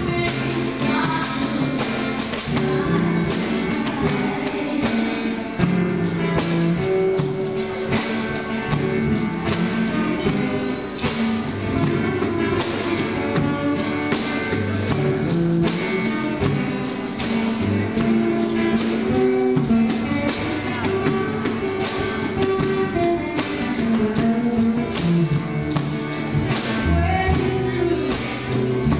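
Live band music: acoustic guitars strummed over a steady beat of hand percussion, with voices singing.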